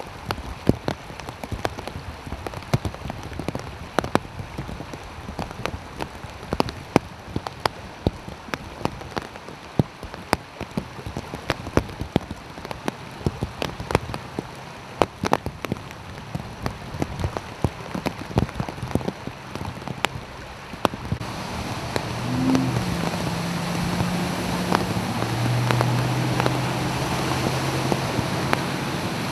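Steady rain, with large drops striking close by as scattered sharp ticks. About two-thirds of the way through, the sound swells as cars drive through the flooded street, their tyres throwing up water over a low engine hum.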